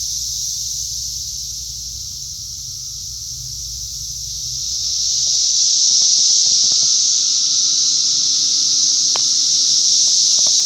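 Chorus of Brood X periodical cicadas (Magicicada), a steady high buzzing drone that grows louder about five seconds in, with a low rumble under it in the first half.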